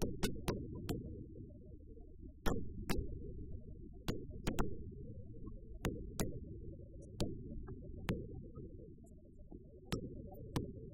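Aerial fireworks shells bursting: about fifteen sharp bangs at uneven intervals, some in quick pairs, over a steady low rumble.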